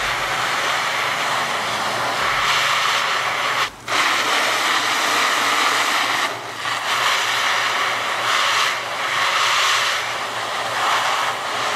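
Garden hose spray nozzle on its shower setting, a steady hiss of water pouring down onto a waterproof hunting jacket's hood and shoulders. The spray cuts off for a moment about four seconds in, then dips briefly twice more.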